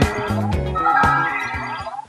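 Music with a bass line and beat, dying away near the end.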